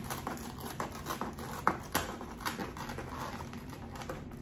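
Foam clamshell takeout container's lid being torn off at the hinge by hand: an irregular run of crackles and creaks of the foam, with a sharper snap a little before two seconds in.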